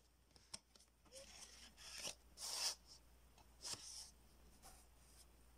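Cardboard CD packaging being handled and unfolded: several short rubs and scrapes of paperboard, the loudest about two and a half seconds in, with a light click about half a second in.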